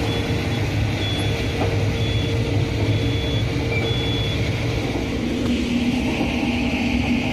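Combine harvester running steadily while harvesting corn, with a short high beep repeating about once a second that stops about four seconds in. About five and a half seconds in, the machine's running note shifts and grows a little brighter.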